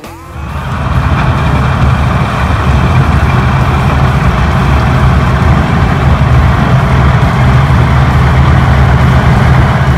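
Heavy farm machinery engine running steadily: a deep, even hum under a broad whirring noise. It swells up during the first second.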